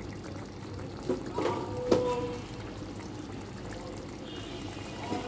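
Fish curry simmering in a pot, a steady bubbling, with a few light clicks about a second in and again about two seconds in.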